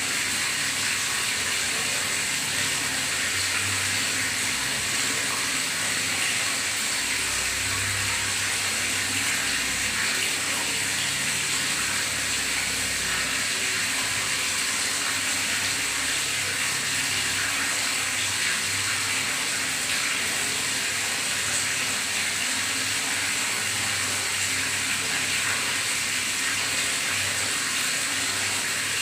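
Water gurgling and running in a bathtub, a steady, even rush with no pauses.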